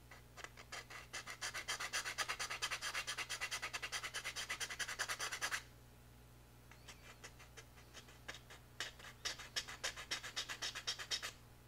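Small hobby file rasping on a plastic kit part with rapid back-and-forth strokes, widening an opening. It runs in two spells, the first steady and the second more broken after a short pause.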